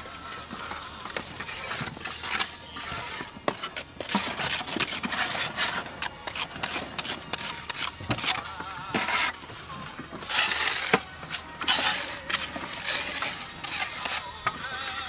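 Steel trowel scraping and knocking wet cement mortar into the joints of clay barrel roof tiles: an irregular run of gritty scrapes and taps, loudest a little after the middle.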